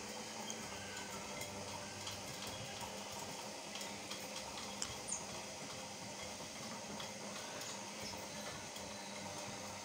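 Steady low hum of a front-loading washing machine that is switched on, with a few faint light taps and ticks as a cat paws at its glass door, most of them about four to five seconds in.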